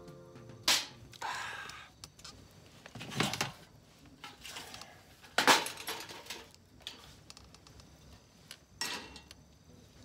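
Several sharp knocks and clatters, spaced a few seconds apart, with a short rustle about a second in: objects being handled and set down.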